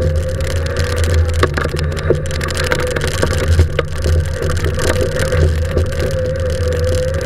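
Fiat Seicento rally car's engine driven hard, heard inside the cabin, its note holding fairly steady with small rises and dips. Tyres hiss on the wet road, with scattered knocks and clicks from the car.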